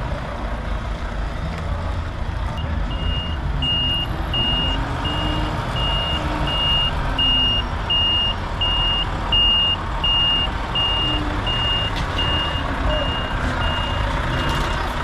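Lorry reversing: its reversing alarm beeps at an even pace, about three beeps every two seconds, starting a few seconds in, over the steady low running of its diesel engine.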